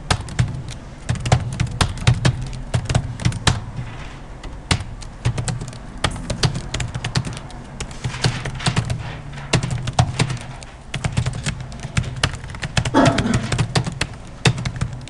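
Computer keyboard typing in irregular runs of quick keystrokes over a steady low hum.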